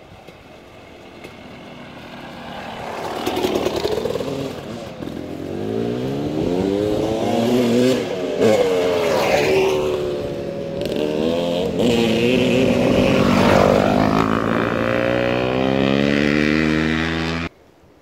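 Dirt bike engine revving as it is ridden, its pitch repeatedly climbing and dropping, building up over the first few seconds and cutting off suddenly near the end.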